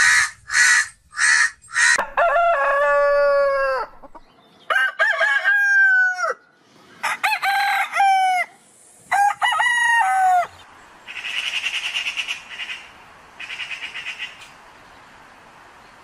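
A crow cawing four times in quick succession, then a rooster crowing four times, each long crow dropping in pitch at its end. From about 11 s, magpies chatter in rapid rattling bursts.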